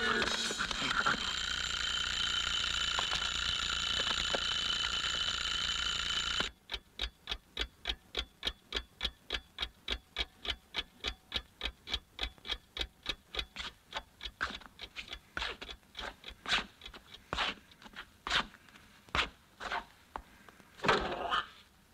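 A steady high ringing made of several held tones cuts off abruptly about six seconds in. A clock then ticks evenly, about three ticks a second, and the ticks slow and spread out to about one a second toward the end, with one louder knock near the end.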